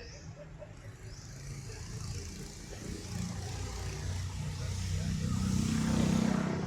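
A motor vehicle passing close, its engine rumble and road noise growing steadily louder to a peak near the end, then dropping away.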